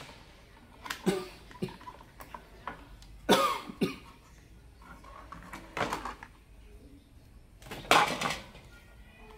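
A handful of short clatters and scrapes as the plastic housing and LED board of a solar lamp are handled and set down on a wooden workbench, with a tool picked up near the end.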